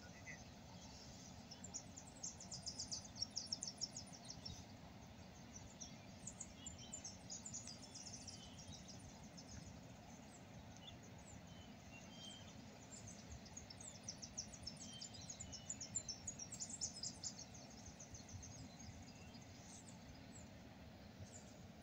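Faint birdsong: small birds giving high chirps and quick trills, in clusters about two to five seconds in and again around fifteen seconds in, over a low, steady outdoor rumble.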